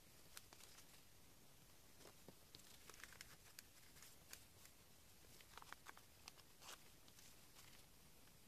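Faint rustling and crinkling of paper being folded and handled by hand, with scattered small ticks and crackles.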